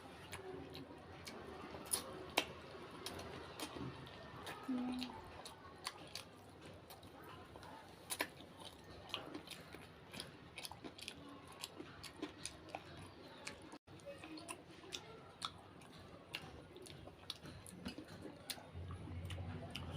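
Chewing and crunching samosa up close to the microphone: irregular crisp clicks and crackles of biting and chewing.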